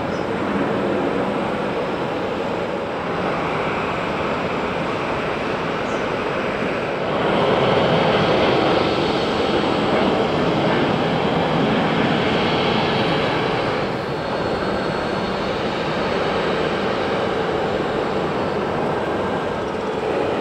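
Business jet engines during landing: a steady rush of jet noise with a high whine, louder for about seven seconds in the middle while a jet rolls out on the runway.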